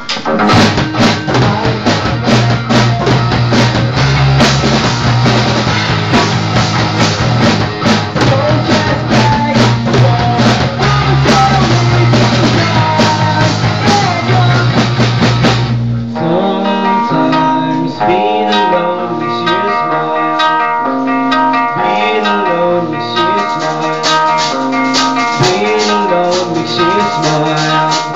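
Amateur punk rock band playing live: electric guitars and a drum kit, with a male singer at the microphone. About sixteen seconds in, the heavy low end drops away and the song goes into a thinner passage of held guitar notes over lighter drumming.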